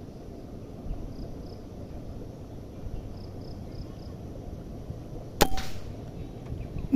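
A single shot from a Betagunz PCP air rifle about five and a half seconds in: one sharp, sudden crack. A smaller knock follows about a second and a half later.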